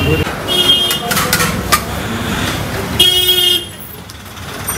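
Busy street traffic with vehicle horns: a short toot about half a second in and a louder half-second horn blast about three seconds in that cuts off suddenly, with a few clinks between them.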